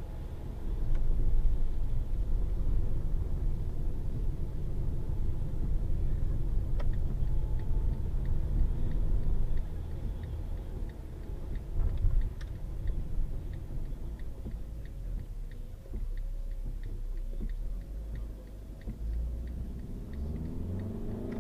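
Car cabin noise picked up by a dashcam's built-in microphone while driving: a steady low road and engine rumble that rises and falls. Through the middle there is a regular light ticking, about two ticks a second.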